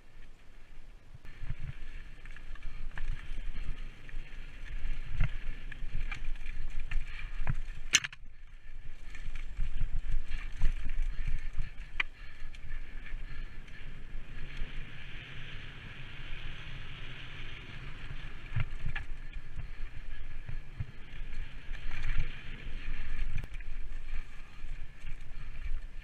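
Mountain bike riding over a dirt and rock trail: tyres rolling and crunching, with the bike's chain and frame rattling and knocking over bumps and a sharp knock about eight seconds in. Wind rumbles on the camera microphone.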